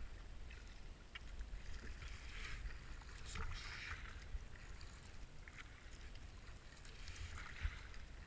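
Kayak paddle strokes splashing through foamy river water, an irregular splash every second or two over a steady low rumble of water and hull noise.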